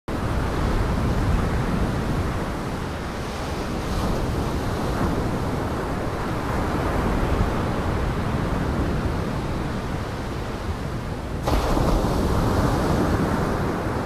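Steady rushing of surf and wind. It jumps abruptly louder and brighter about eleven and a half seconds in.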